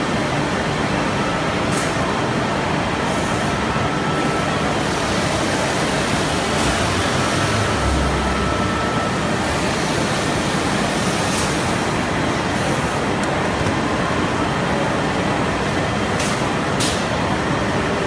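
CNC chair-leg mortising machine running: a steady, dense mechanical noise with a few sharp ticks and one short low thump about eight seconds in.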